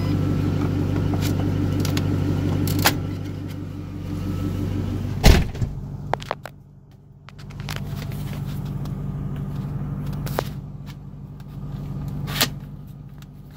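2005 Ford Mustang's engine idling steadily, heard from inside the cabin. Scattered clicks and knocks come from plastic dash trim being handled and pried, with the sharpest knock about five seconds in.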